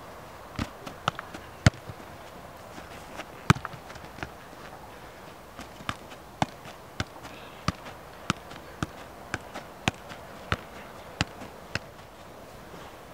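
Soccer ball being juggled: a run of short, sharp taps as the ball is kept up off foot and leg. The taps are irregular at first, with one loud touch a few seconds in, then settle into a steady rhythm of about two a second from about six seconds in.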